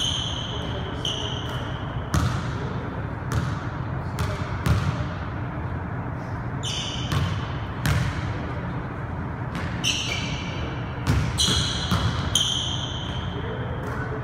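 Basketball dribbled on a hardwood gym floor, bouncing at an irregular rhythm, with sneakers squeaking sharply on the floor several times, notably about seven seconds in and again around ten to thirteen seconds in.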